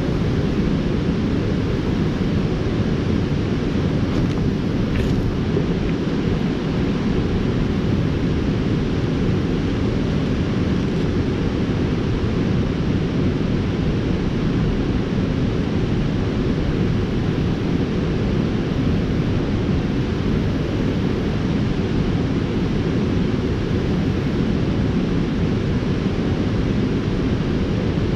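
Steady, deep rushing of river water pouring over a low-head dam, unchanging throughout.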